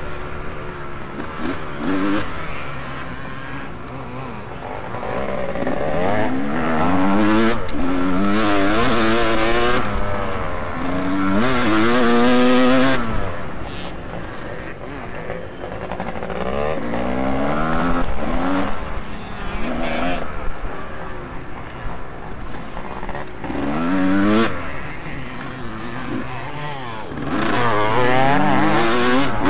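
Motocross motorcycles racing around the track, their engines revving up and down again and again as they accelerate and shut off. The loudest passes come near the middle and again near the end.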